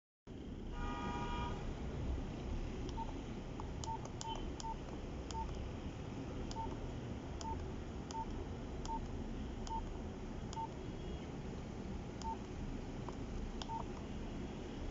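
Nokia 3310 keypad tones: short single beeps at irregular intervals as its buttons are pressed, with faint key clicks, after a brief buzzy multi-tone beep about a second in.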